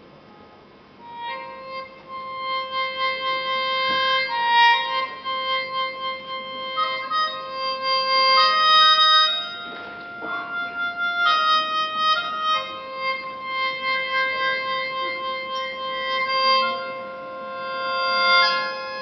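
Wind instrument music starting about a second in: slow, sustained notes, with a low note held underneath while higher notes change above it.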